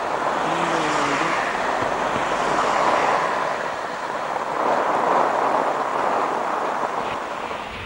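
Torrential rain pouring, with cars driving through it on a wet road: a steady rushing hiss that swells about three seconds in and again around five seconds.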